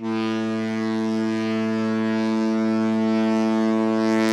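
Cruise ship Viking Star's horn sounding one long, steady, deep blast that starts abruptly.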